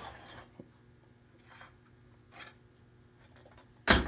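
A few faint handling rustles, then near the end a sharp metallic clatter and rattle as a metal muffin tin holding cast metal pieces is set down on the workbench.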